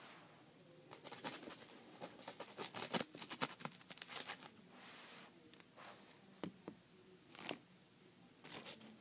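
Scratchy rustling and light taps of a cat playing with a feather toy on carpet, busy and rapid for a few seconds, then a handful of separate taps near the end.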